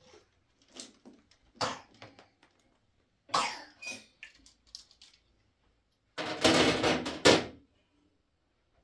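A person coughing, with a longer run of coughs about six seconds in.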